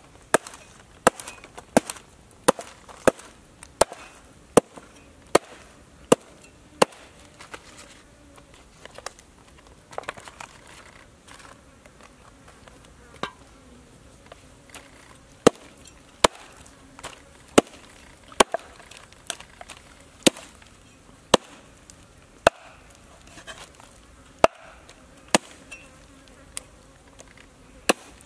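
Meat cleaver chopping a crocodile tail into chunks on a wooden chopping board: a series of sharp, separate strikes, quick and regular at first, then a sparse stretch in the middle before the regular chopping resumes.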